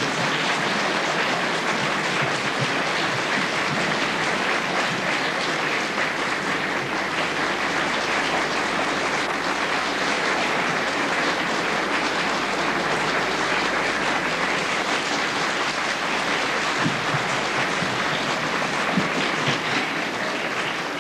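Studio audience applauding, a steady, unbroken clapping that eases off slightly near the end.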